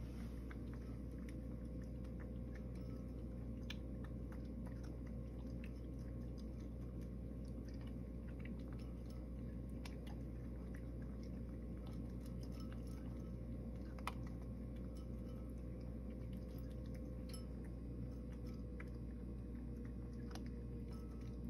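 Cat eating from a bowl: wet chewing with scattered small crunches and clicks, one sharper click about two-thirds of the way through, over a steady low hum.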